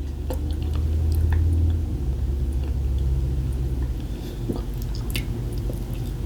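A person chewing food, with scattered small clicks of the mouth, over a steady low hum.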